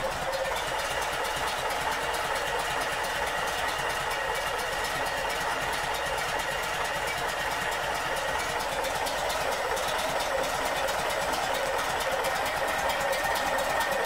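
Air-cooled flat-four engine of a 1978 Volkswagen Brasília with twin carburettors, running steadily at an even speed, with a faint high whine over it.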